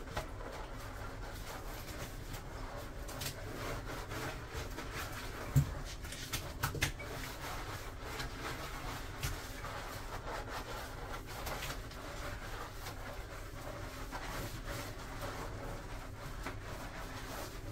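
Lathered shower puff scrubbing over soapy skin, a steady soft rubbing with fine crackles, broken by a few dull knocks about six to seven seconds in.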